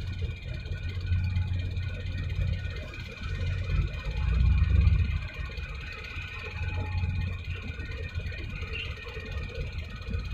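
Harbourside noise beside a passing container ship and tug: an uneven low rumble that swells, loudest about four to five seconds in, under a faint steady high whine.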